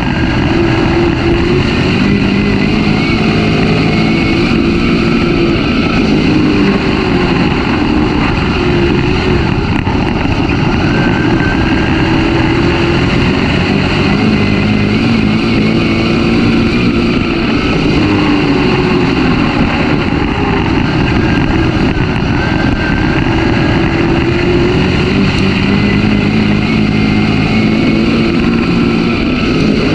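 Dirt-track race car's engine running hard at racing speed, heard from inside the car. The engine note rises and falls in a cycle that repeats about every 11 seconds as the car laps the oval, over a steady rush of wind and track noise.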